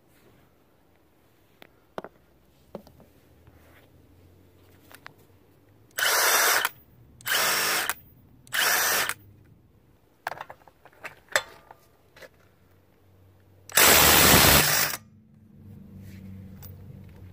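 Milwaukee M18 Fuel 2857-20 cordless impact driver hammering on a car's lug nut that was torqued to about 225 ft-lb. It goes in three short bursts, then a few clicks, then one longer burst of about a second. After that it runs more quietly for a couple of seconds near the end.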